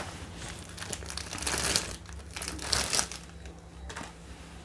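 Clear plastic packaging bag crinkling as a plastic phone holder is pulled out of it, with two louder rustles about a second and a half and three seconds in.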